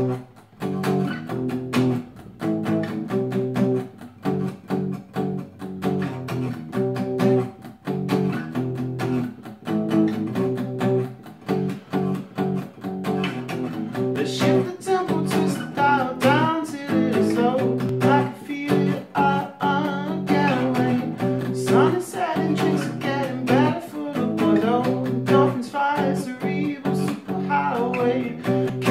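Acoustic guitar starting up and strumming chords in a steady rhythm; a man's singing voice comes in about halfway through.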